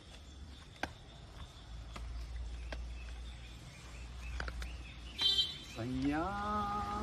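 Low outdoor rumble with a few faint clicks, then about five seconds in a brief high squeak, followed by a person humming a note that slides up and holds steady.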